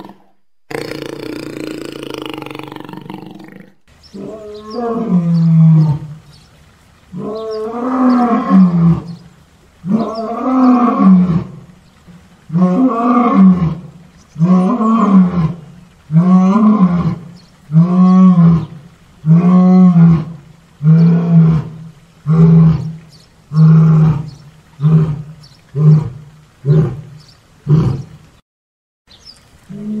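A big cat roaring, given as a jaguar's roar. First comes a rough call, then a run of about fifteen loud calls that each rise and fall in pitch. The early calls are long and about two seconds apart; the later ones are shorter and quicker until the run stops.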